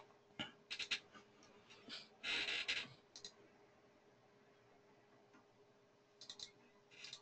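Faint scattered clicks of computer input at a desk, several in the first three seconds and a couple more near the end, with a brief rustle about two seconds in, over a faint steady hum.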